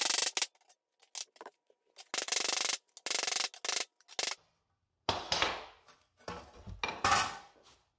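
Several short bursts of harsh, rasping metal noise from hand work on a rusty steel seat pan, each under a second, in the first half. After that come duller knocks and clatter as the pan is shifted about on the workbench.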